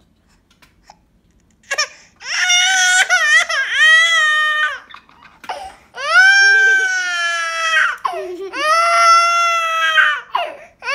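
Baby crying: after about two seconds of quiet, three long, high-pitched wails with brief breaks between them.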